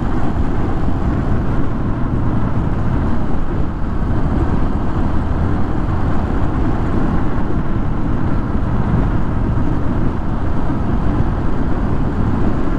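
Motorcycle riding at a steady cruising speed: steady wind rush on the camera's microphone mixed with engine and road noise.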